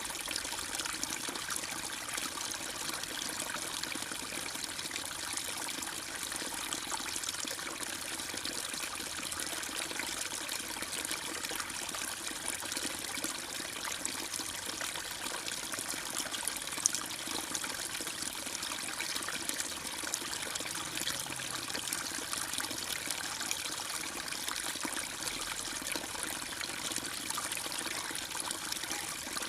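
Steady trickling, flowing water with no birdsong, one short sharp click about halfway through.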